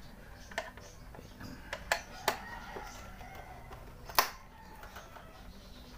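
A few sharp, separate metallic clicks and clinks of a hand tool working a bolt on the scooter's rear bodywork, the loudest two about two and four seconds in.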